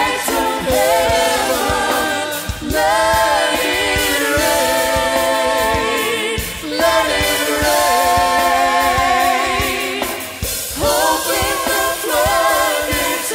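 Church praise band performing a worship song, with voices singing long held phrases over the band's accompaniment.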